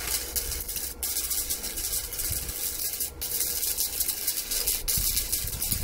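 Stick welding arc crackling and hissing on rusty steel, in four stretches with short breaks where the arc drops out. The welder is set to 70 amps but delivers only about 55 amps.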